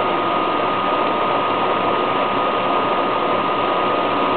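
Steady machine noise: an even whir with a thin, unchanging whine over it, running without a break.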